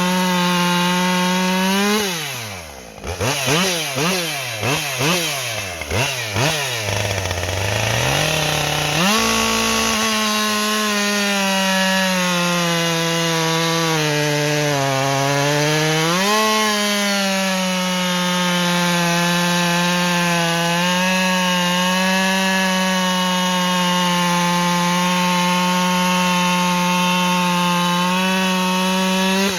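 Two-stroke chainsaw running at full throttle through a log. Its engine pitch drops about two seconds in and swings up and down several times until about nine seconds. It sags under load a few seconds later, then holds high and steady until it comes off throttle at the end.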